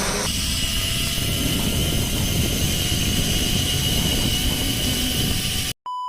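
Steady loud rushing noise with a thin high whine running through it. It cuts off abruptly near the end and is followed by a short electronic beep.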